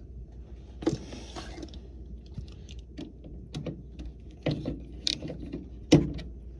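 Irregular metallic clicks and clinks of tools and furnace parts being handled and fitted back in place, the sharpest one near the end, over a steady low hum.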